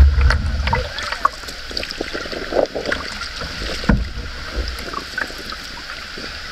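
A wooden canoe being paddled: small splashes, drips and taps from the paddle and hull, with a low rumble in the first second and a single sharper knock about four seconds in.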